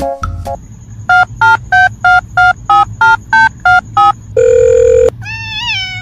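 A run of ten short electronic beeps, about three a second, their pitch stepping slightly up and down like phone tones, followed by one steady electronic tone lasting under a second and then a brief sound that rises and falls in pitch.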